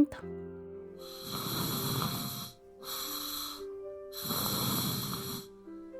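Snoring sound effect: two long, soft, airy snores about three seconds apart, over quiet background music. This is the gentle snore of sleeping on the side rather than on the back.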